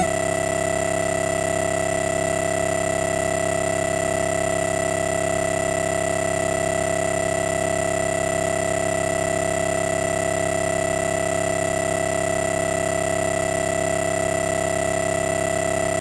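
A steady electronic drone: several tones held together, unchanging in pitch and loudness throughout, like a single sustained synthesizer chord.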